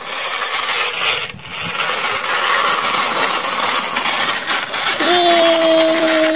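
Hard plastic wheels of a toy dump truck rolling over rough concrete as it is pushed by hand: a steady gritty rattle and rasp. About five seconds in, a long held vocal note starts over it.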